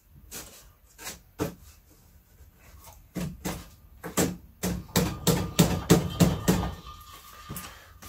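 Plywood shelf boards being knocked and forced into tight slots in a wooden frame: scattered knocks, then a quick, louder run of them from about three to seven seconds in. The fit is tight, the wood a little wet and swollen, as the builder thinks.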